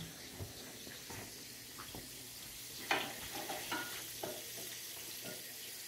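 Steady faint sizzle of chicken breasts frying in oil and mushrooms cooking in butter. Light knocks and clinks come a few times, the loudest about three seconds in.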